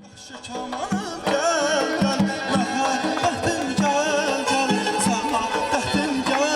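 Azerbaijani folk music fading in: a drum beating a steady rhythm under a wavering, ornamented melody, full from about a second in.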